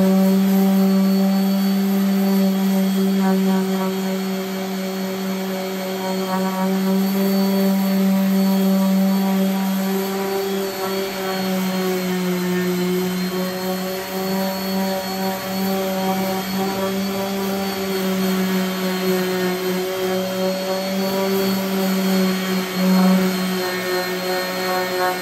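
A DeWalt random orbital sander runs without a break, sanding the edge of a walnut slab. It makes a steady motor hum that dips slightly in pitch about halfway through as it is pressed into the wood.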